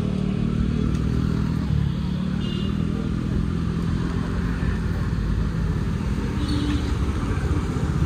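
Steady low rumble of a car on the move: engine and road noise at low speed in town traffic. A faint, short high tone comes about two and a half seconds in.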